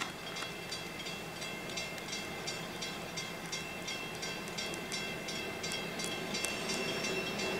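Railway level crossing bell ringing with regular, evenly spaced strikes, over the growing rumble of an approaching diesel-hauled container train that gets louder near the end.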